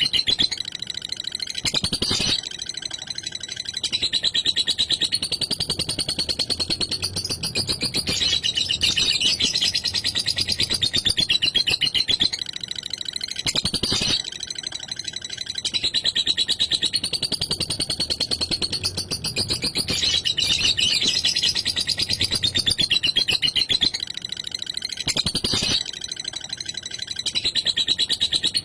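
Lovebird giving a long, rapid, high-pitched chattering trill, the 'ngekek' song, with brief softer spells every ten seconds or so.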